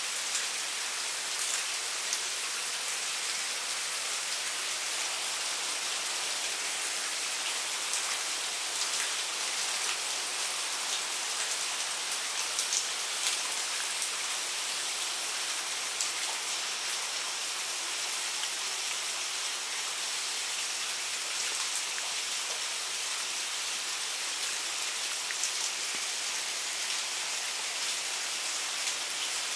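Steady rainfall with water running and splashing down through the cups of a metal cup-style rain chain: an even hiss with scattered sharp drip ticks.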